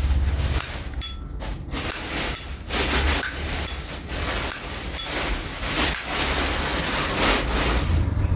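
Vintage Zippo windproof lighter's lid being flicked open and snapped shut over and over: a string of sharp metallic clicks and clacks. This is its original, unmodified lid sound, with hinge and cam never repaired or replaced.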